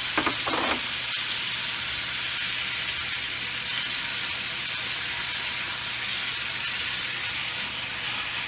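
Kimchi sizzling steadily in hot oil in a frying pan as it is stir-fried.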